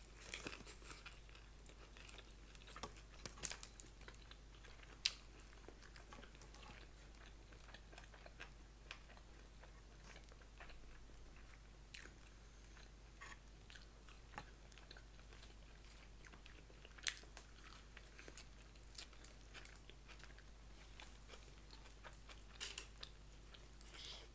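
Faint close-up chewing and biting of food, with scattered short sharp mouth clicks.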